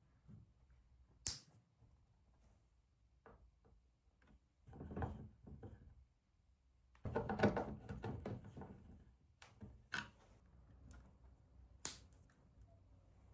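A few sharp clicks of lever-type wire connectors snapping shut, with rustling and light knocks as wires and a small circuit board are handled in between.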